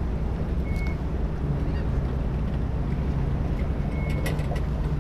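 An engine idling steadily with a low hum, with a brief high peep about a second in and another near the end, and a few light clicks.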